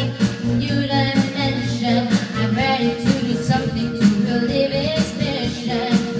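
A woman singing karaoke into a handheld microphone over a videoke backing track with a steady beat.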